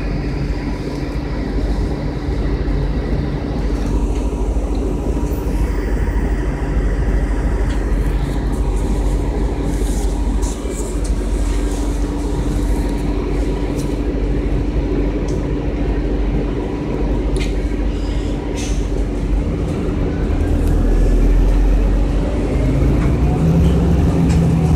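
Interior ride noise of a 2002 Orion VII CNG 40-foot transit bus under way: a steady engine and drivetrain hum over road noise, with a few sharp rattles from the cabin. A faint whine rises near the end.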